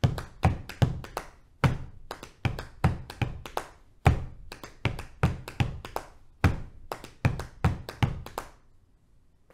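Body percussion: hands slapping the thighs in a layered 5:4:3:2 polyrhythm, a dense interlocking stream of dry slaps and low thuds that stops near the end.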